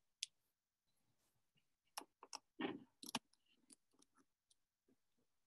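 Faint, scattered clicks and light taps, most of them between about two and three and a half seconds in: a multimeter and its test probes being handled and set on a solenoid coil's terminals for a resistance reading.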